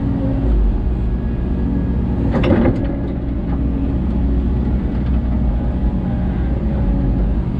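Diesel engine of a Hidromek 14-ton excavator running steadily, heard from inside the operator's cab. There are a few short knocks about two and a half seconds in.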